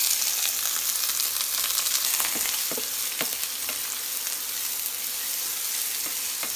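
Freshly added chopped onions sizzling steadily in hot oil in a nonstick frying pan, stirred with a wooden spatula that knocks against the pan a few times between about two and three and a half seconds in.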